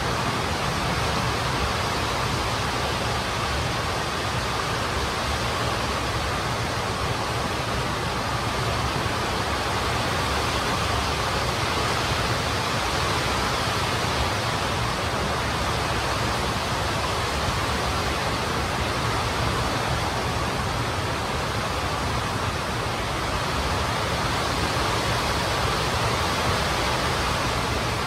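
A steady, even rushing noise that does not change or break.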